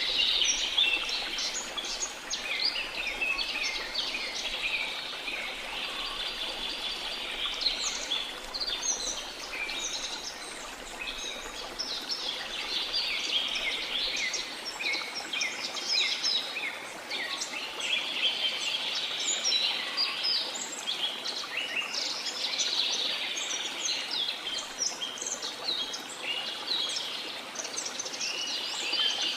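A chorus of many small birds chirping and twittering continuously, with calls overlapping, over a faint steady wash of sea water.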